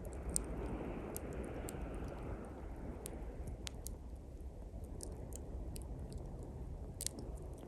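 Small campfire of thin pine twigs crackling, with sharp irregular pops and snaps, over the wash of sea waves. A wave swells in and recedes over the first three seconds or so.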